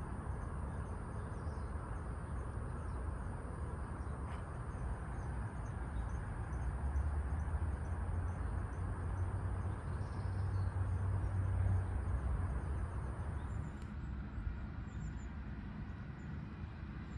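Outdoor ambience: a steady, high-pitched insect drone with faint repeated chirps over a low rumble; the drone cuts off abruptly near the end.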